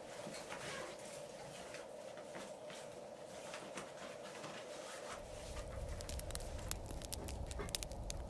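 Soft knocks and rustles of split firewood being handled. About halfway through, a low rumble sets in with many small sharp clicks.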